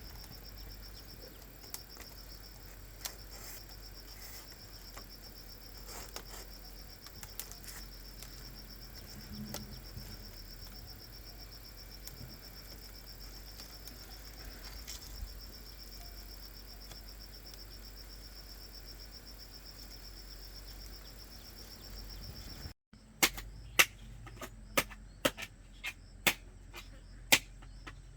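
Crickets trilling steadily, with a few faint clicks. Near the end the sound cuts, and a run of loud sharp knocks follows, about two a second.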